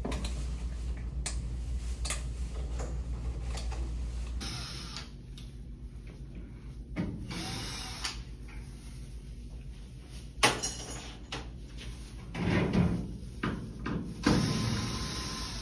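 A handheld power drill running in several short bursts, with knocks and clatter in between and a sharp knock about ten seconds in. A steady low hum fills the first few seconds.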